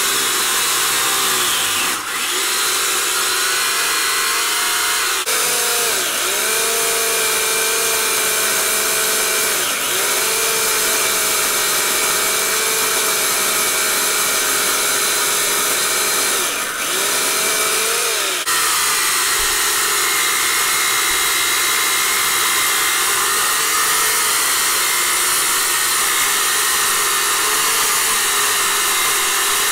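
Portland 14-inch electric chainsaw's 9-amp motor whining steadily as the chain cuts into a log, the pitch sagging briefly several times as the chain bites and then recovering. The owner finds it lacks the power and chain speed needed for carving. The sound jumps abruptly a few times.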